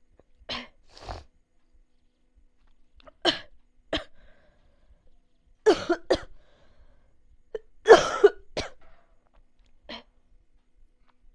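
A person coughing in short, sharp coughs, mostly in pairs with pauses between, about nine in all, the loudest pair about two-thirds of the way through.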